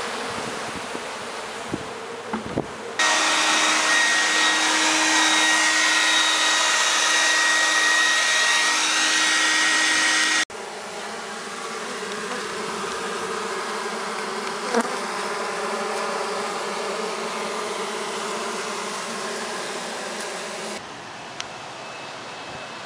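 Dense buzzing of a large mass of honey bees, heard in several shots cut together. It is loudest for several seconds after about three seconds in, with a steady whine under the buzz, then softer again. Near the end it drops to a quieter background hum.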